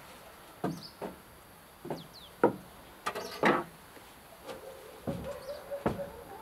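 Scattered hollow knocks and thuds on a wooden plank floor and frame as glass wool insulation batts are handled and walked over, about seven in all. A bird calls in the background, with a pulsing cooing call coming in during the second half.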